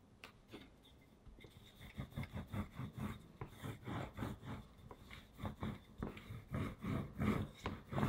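Wooden rolling pin rolled back and forth over firm cookie dough, riding on metal guide bars: a quick, uneven run of short rubbing knocks that starts about a second and a half in, after a few faint taps.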